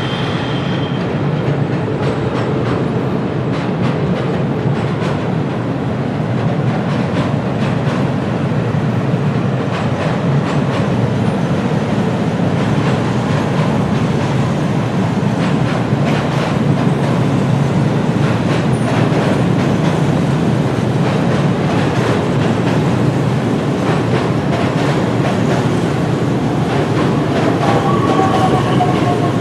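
Train running on the rails: a steady rumble with many irregular clicks of the wheels over rail joints. Near the end a faint, slightly falling wheel squeal comes in.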